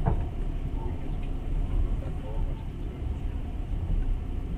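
Passenger train running along the track, heard from inside the carriage: a steady low rumble of the wheels on the rails, with one sharp knock right at the start.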